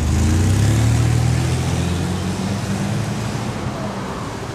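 A road vehicle's engine passing close by in street traffic. It swells to its loudest about a second in, then fades away.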